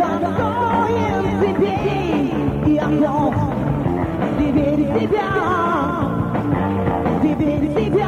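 Rock band playing from a concert recording, with a wavering, bending lead line over a steady sustained backing.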